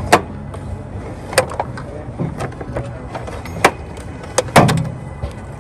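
Scattered sharp knocks and clicks over steady background noise, the loudest a knock with a low thud about three-quarters of the way through.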